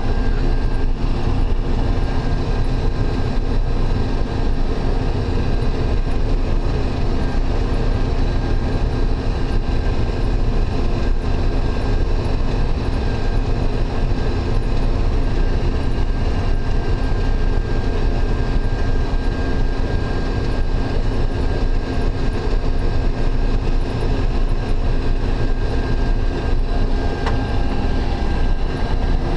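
Combine harvester running steadily while picking up a canola swath: a constant deep machine drone with a steady high whine over it.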